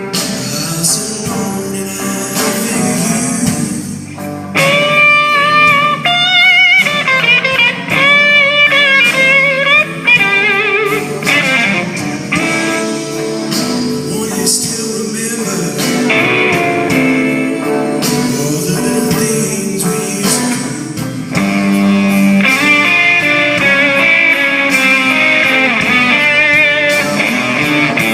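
Live blues-rock band music with electric guitar, with strongly wavering high notes about five seconds in.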